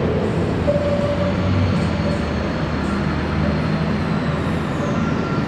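Light-show soundtrack playing a steady, train-like rumbling sound effect over outdoor speakers, with a thin high tone that slides down near the end.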